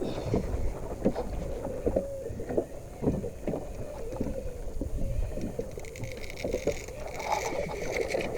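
A small fishing boat riding the sea while trolling: water slapping and knocking irregularly against the hull over a low rumble and wind on the microphone, with a higher hiss joining near the end.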